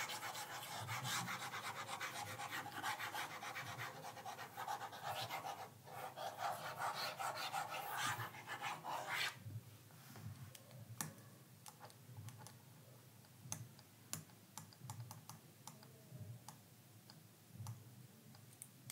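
Faint rustling and scratching for about nine seconds, then scattered sharp clicks of a laptop being operated.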